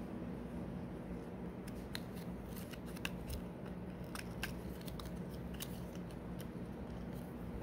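Cardboard hang tags on a plush toy clicking and rustling as fingers flip through them: a string of sharp little ticks over a steady low background hum.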